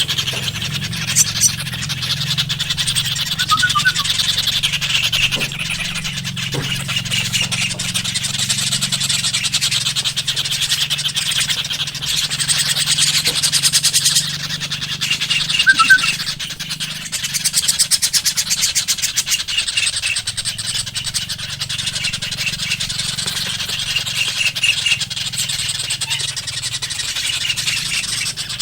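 Birds calling in short repeated chirp groups every few seconds over a steady high insect-like buzz and a low steady hum.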